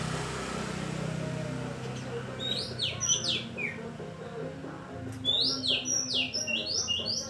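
Oriental magpie-robin (kacer) song: two bursts of quick, high whistled notes, mostly sweeping downward, about two seconds in and again about five seconds in. A low steady hum runs underneath.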